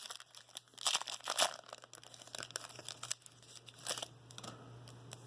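A plastic trading-card pack wrapper being torn open and crinkled by hand in irregular rustling bursts, loudest about a second in and again near four seconds, then dying away. A faint steady low hum runs underneath.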